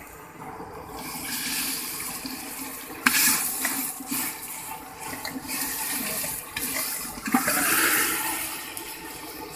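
Raw mutton pieces and their water tipped from a steel plate into a pot of boiling water: a steady splashing and rushing of water, with a few sharp knocks about three, four and seven seconds in.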